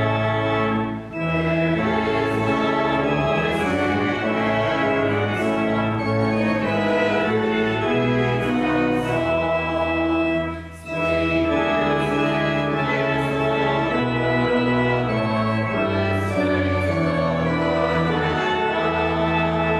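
Church pipe organ, newly rebuilt, playing slow sustained chords. There are brief breaks between phrases about a second in and again about halfway through.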